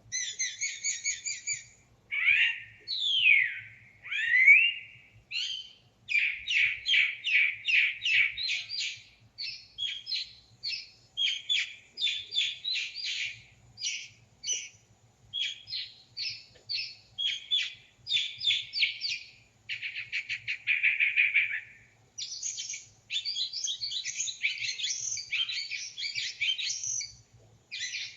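A songbird singing a long, varied song of short phrases, made of rapidly repeated notes, trills and slurred whistles with brief pauses between them, mimicking the songs of other birds.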